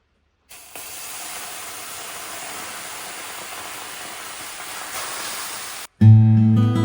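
Water thrown onto hot sauna stones for löyly, hissing into steam: a steady hiss that starts about half a second in and cuts off abruptly near the end. Acoustic guitar music starts right after.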